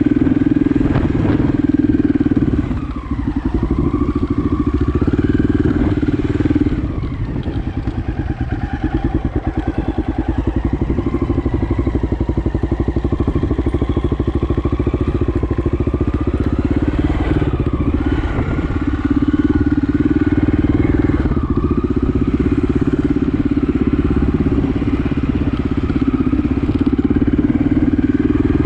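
Honda XL600R's single-cylinder four-stroke engine running under way, its revs rising and falling with the throttle. The engine note drops off briefly about three seconds in and again around seven seconds, then picks back up.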